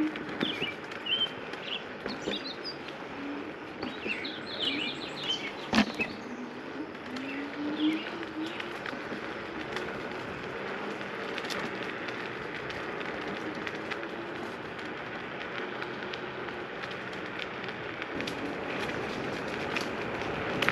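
Small birds chirping in short repeated calls through the first half, over a steady rushing background noise, with a single sharp click about six seconds in.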